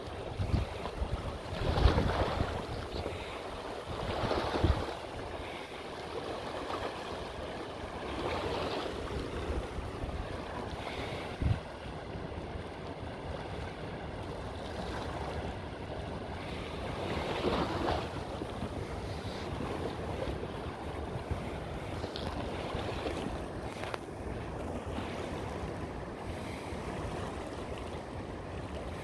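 River rapids rushing steadily, with wind buffeting the microphone in gusts during the first few seconds and a single short thump about eleven seconds in.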